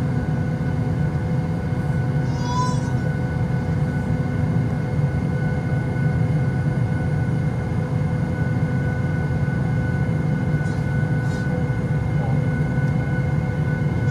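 Steady cabin drone inside a Boeing 737 MAX 8, with a few steady whining tones over a low rumble. A brief high squeal sounds about two and a half seconds in.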